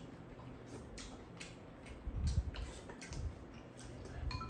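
Eating at a table: scattered light clicks of spoons and chopsticks against bowls, with soft chewing.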